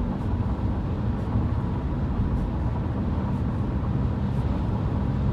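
Inside the cabin of a moving car, strong wind gusts hit the side of the car over a steady low rumble of road and engine noise.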